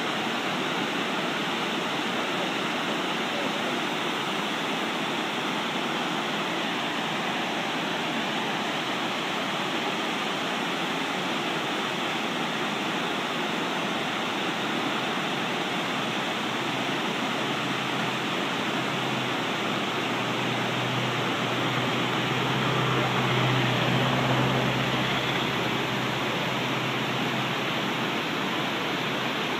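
Partly frozen waterfall rushing steadily, its water still pouring through the ice. A low rumble swells in the last third and fades again.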